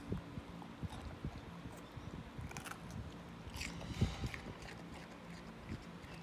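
Alaskan malamute chewing a raw green bell pepper: irregular crunches and clicks of teeth, with one louder crunch about four seconds in.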